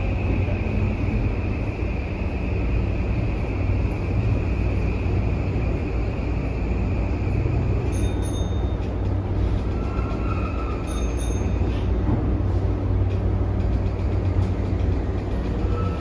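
Running noise inside a Toei 5500-series car: the Mitsubishi full-SiC VVVF inverter and its three-phase induction traction motors whine over a steady low rumble of wheels on rail. A steady high whine breaks off about halfway, and a lower tone comes and goes after it, as the train brakes for its stop.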